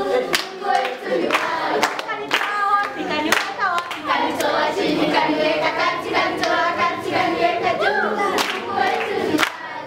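A group of voices singing together with hand claps keeping a steady beat of about two claps a second.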